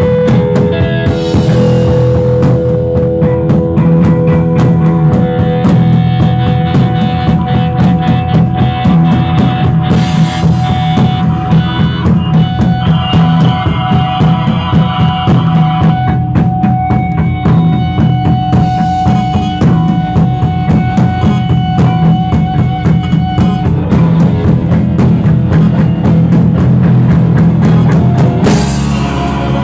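Rock band playing live and loud: a drum kit keeps a steady, busy beat under electric guitar with long held notes.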